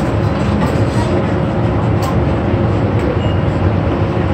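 Steady roar of commercial gas stove burners running under the pans, with a faint steady hum beneath it. A single light click about two seconds in.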